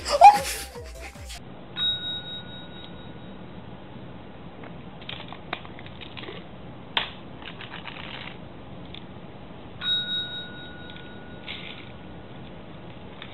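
A small tap bell dings twice, about eight seconds apart, each ring fading over a couple of seconds, as a cat presses it with its head or paw. Soft clicks and rustles come between the rings, and a loud knock and clatter sits at the very start.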